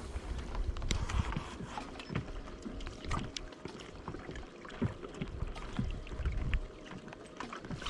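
Water lapping and slapping against a fishing kayak's hull, with irregular low knocks and scattered short clicks.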